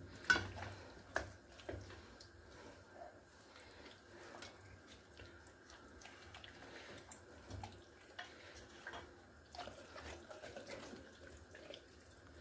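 Faint wet squishing and soft slaps of hands working a liquid spice marinade into a whole raw chicken, with small drips of marinade falling onto the plate.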